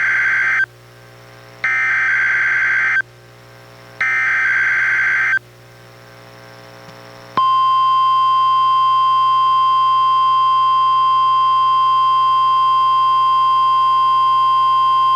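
NOAA Weather Radio SAME header: warbling digital data bursts, the end of one and then two more, each about a second and a half long with a second's gap between them. About seven seconds in, the steady 1050 Hz NWR warning alarm tone starts and holds unbroken, sounded here as part of the required weekly test.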